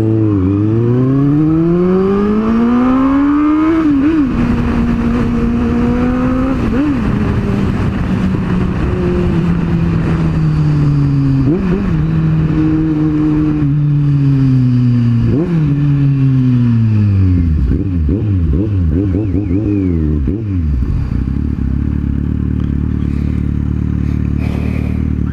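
Kawasaki Z750's inline-four engine revving up hard for about four seconds, then shifting up. The revs then fall as the bike slows, with three quick throttle blips on the downshifts, and the engine settles to a steady idle about 20 seconds in.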